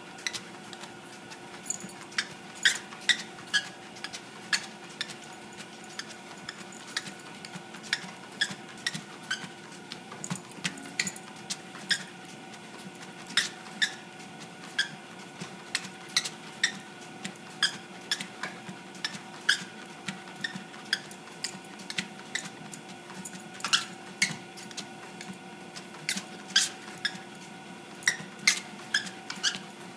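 A dog's claws clicking and tapping irregularly on a treadmill, a few sharp clicks a second, over a steady hum from the running treadmill's motor.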